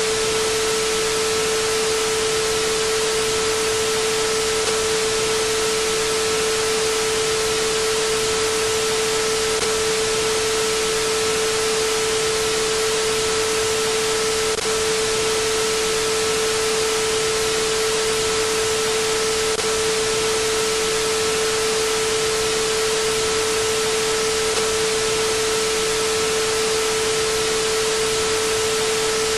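TV test-pattern sound: a steady sine tone over a constant hiss of television static, unbroken and even, with a faint blip in the tone about every five seconds.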